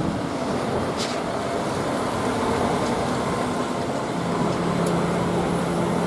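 MAN concrete mixer truck's diesel engine running as the truck drives slowly along a street, with road noise. A steady low hum comes in about four seconds in.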